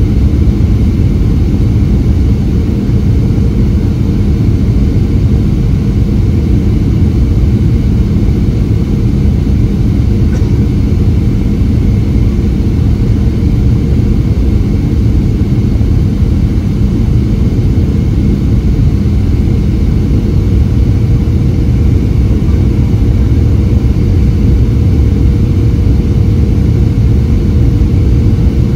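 Steady cabin noise of a Boeing 737-700 airliner in flight: the rumble of airflow and the CFM56-7B engines, with a steady low hum and a higher steady tone running through it.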